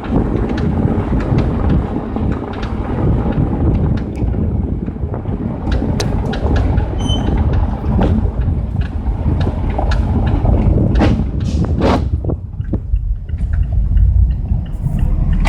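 Rattling and clacking from the front suspension of a car on KSport Street coilovers: irregular sharp knocks over a steady rumble of driving noise. The owner suspects the uniball top mounts.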